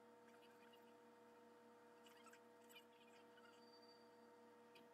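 Near silence over a steady electrical hum, with a few faint clicks as small plastic model-kit parts are handled with a hobby tool.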